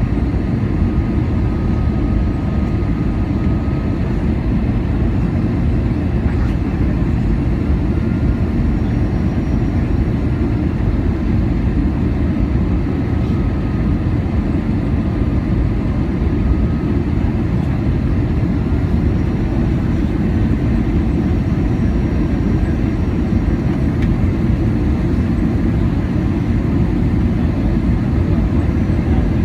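Steady cabin noise inside an Airbus A320-216 in flight, a low, even rush of airflow and CFM56 engine drone that holds constant.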